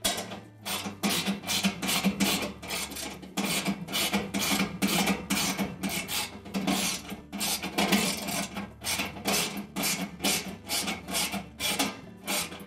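Ratchet wrench with a 1/2-inch socket driving bolts into a washer's tub support legs: a rasping ratchet click on each back-swing, repeated about three times a second.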